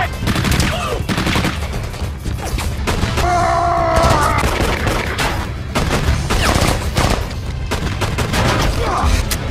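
Gunfight from an action-film soundtrack: repeated gunfire from automatic weapons and pistols over film music. A held, pitched cry or tone stands out about three seconds in.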